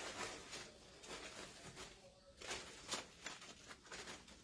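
Faint, irregular rustling of wired ribbon, starched cotton fabric strips and deco mesh being handled and adjusted on a wreath.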